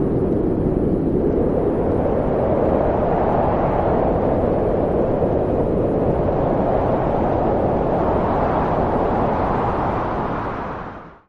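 A steady rushing roar of noise with no tone in it, fading out over the last second.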